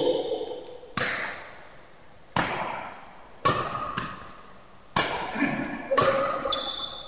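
Badminton racquets striking a shuttlecock back and forth in a rally, a sharp hit about once a second, each echoing in a large hall.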